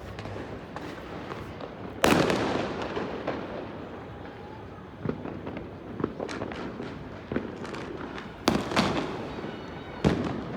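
Fireworks going off: a loud bang about two seconds in with a long rolling rumble after it, scattered smaller cracks, and two more loud bangs near the end.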